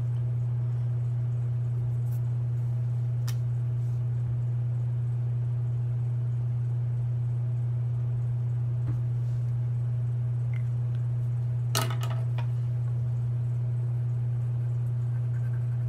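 A steady low hum, with a couple of faint clicks.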